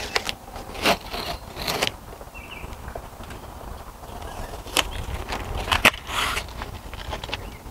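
A handful of sharp clicks and small knocks, with a short scrape about six seconds in, as plastic railing-template pieces are handled and pulled off a vinyl post sleeve. A low steady rumble sits underneath.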